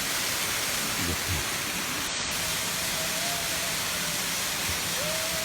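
Water pouring over a spillway waterfall, a steady, even rush of noise.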